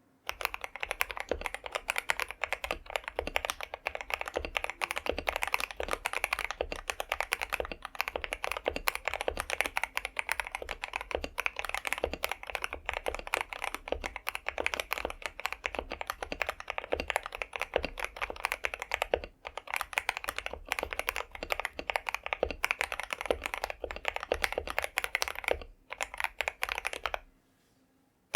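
Continuous fast typing on a KBD67 Lite R4 mechanical keyboard fitted with lubed and filmed Akko CS Jelly Pink linear switches and cherry-profile PBT keycaps, a dense stream of keystrokes. It breaks off briefly near the end.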